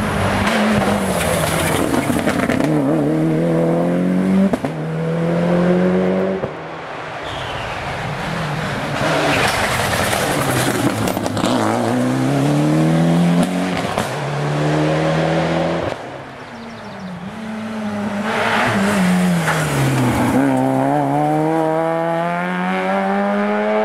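Rally cars passing one after another at speed, engines revving hard. Their pitch climbs through quick upshifts and slides down as they brake and downshift for the bend.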